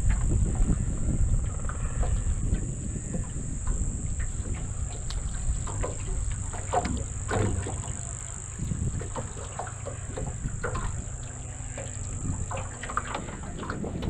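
Wind rumbling on the microphone in an open aluminium dinghy, over a steady high-pitched hiss, with scattered small clicks and knocks as a bream is reeled in on a rod and swung aboard; the clicks are busiest around the middle.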